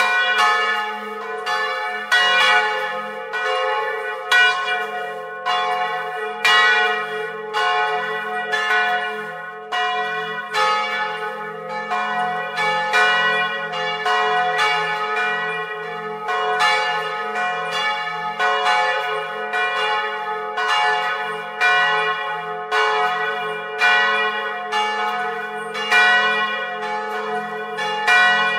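Two historic bronze church bells, one cast in 1772, swinging and ringing together at close range on their original wooden yokes and clappers. Strokes come unevenly, about one to two a second, each ringing on over the next, with a steady low hum beneath.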